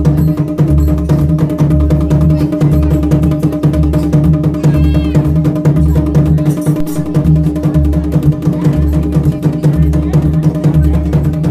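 Ritual drumming: a dhol beaten in a repeating rhythm, with fast clattering strikes above it and a steady ringing tone under them.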